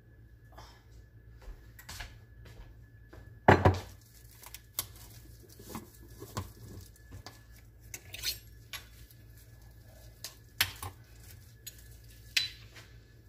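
Metal kitchenware clinking and knocking: a spoon and small stainless containers set down and handled on a glass-top stove, a scatter of separate knocks with the loudest about three and a half seconds in.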